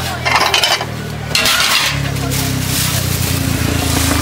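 Plates and steel ware clinking and clattering as a street-food vendor handles them on a metal counter. A low steady engine hum comes in about a second and a half in.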